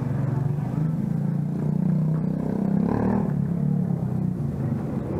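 A motor vehicle's engine running close by: a steady low rumble that swells briefly about two to three seconds in.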